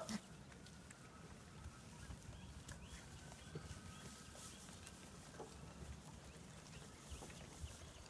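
Faint, scattered taps of week-old Boer/Kiko goat kids' hooves on a wooden ramp over a quiet low background, with the tail end of a kid's bleat right at the start.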